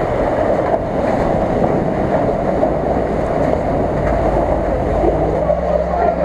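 Land Rover Discovery's engine working under load as the SUV wades through a shallow river of broken ice, with a steady rush of splashing water and churning ice. From about five seconds in the engine note comes through more clearly as it climbs out onto the snowy bank with its wheels spinning.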